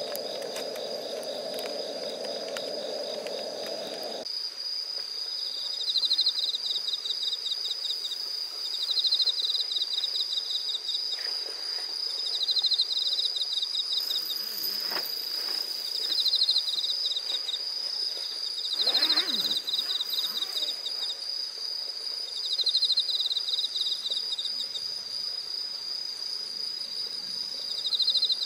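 Night-time insect chorus of crickets and katydids: a steady high-pitched trill, with a louder pulsed chirp about every three and a half seconds. For the first four seconds a low rushing noise sits beneath them, then cuts off suddenly.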